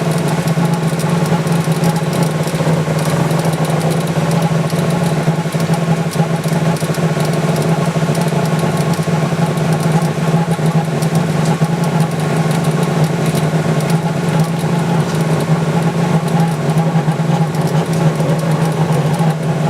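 Laser machine engraving inside a glass block, running with a steady, loud hum and buzz.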